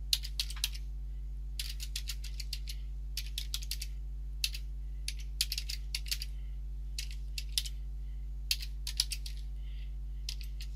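Computer keyboard being typed on in short runs of quick keystrokes with brief pauses between them, over a steady low hum.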